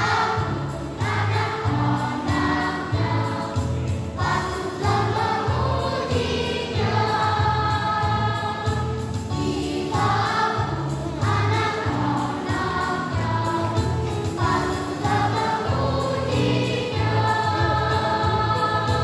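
Children's choir singing a church song in parts, with an accompaniment whose low bass notes change in a steady rhythm underneath.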